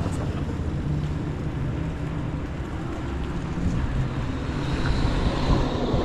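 Steady low rumble of street and traffic noise heard while riding a bicycle, growing slightly louder near the end.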